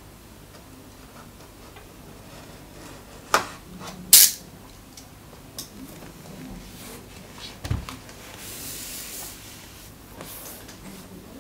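Cardboard packaging being handled: two sharp clicks a few seconds in, a dull knock, then a soft rubbing slide of about a second and a half as a cardboard sleeve is drawn off the box.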